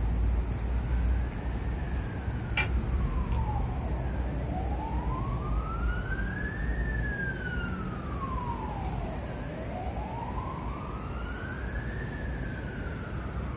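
Emergency vehicle siren in a slow wail, rising and falling about every five seconds, over a steady low rumble.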